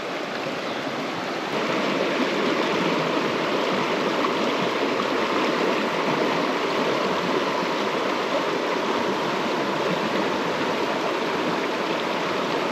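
Shallow mountain trout stream rushing over rocks in a riffle: a steady wash of moving water that grows a little louder about a second and a half in.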